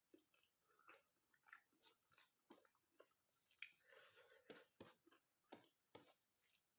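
Faint close-up mouth sounds of someone eating chicken curry with rice: wet chewing smacks and clicks, a couple a second, with one sharper click about halfway through.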